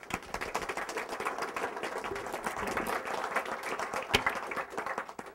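Audience applauding: many hands clapping at once, starting abruptly and fading out near the end, with one sharper, louder clap about four seconds in.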